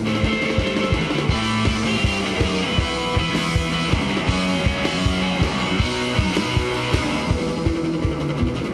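Background rock music with guitar over a steady, driving beat.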